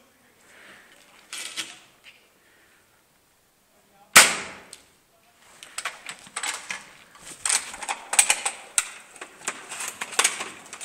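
A single sharp crack of an airsoft sniper rifle firing about four seconds in, ringing briefly in the room. Then footsteps crunching over rubble and debris on a concrete floor, about one and a half steps a second.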